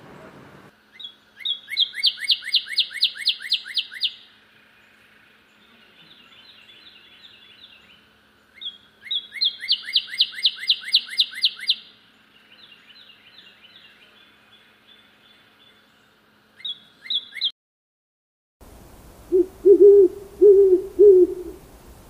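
Northern cardinal singing: phrases of fast, evenly repeated slurred whistles, about six or seven notes a second, two long phrases and several shorter ones. Near the end the song stops and an owl gives a short run of low hoots.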